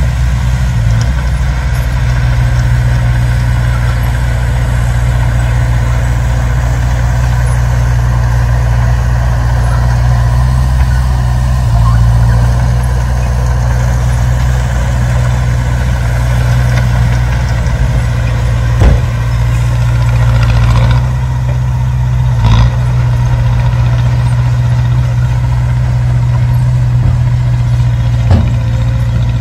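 Heavy construction-machine diesel engine running steadily at a low, even pitch, with three short knocks partway through.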